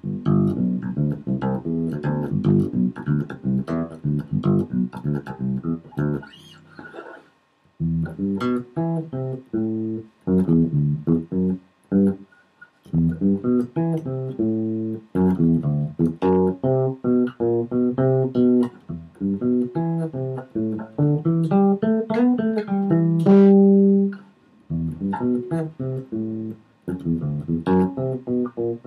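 Electric bass guitar played fingerstyle, unaccompanied: quick runs of plucked notes broken by short pauses. About 23 seconds in, one note slides upward and is held before the runs resume.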